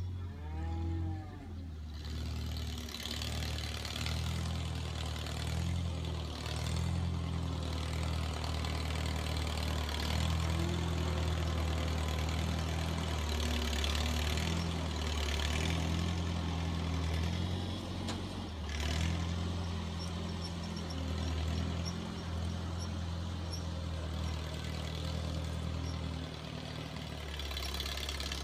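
1949 Farmall Cub's small four-cylinder engine running steadily as the tractor pushes manure with its front plow blade, loudest around the middle as it passes close by. A cow moos briefly about a second in.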